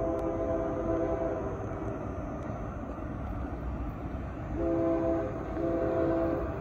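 Union Pacific diesel freight locomotive's air horn sounding a chord as the train approaches. A long blast cuts off about a second in, then two more blasts come near the end, over the low rumble of the approaching train.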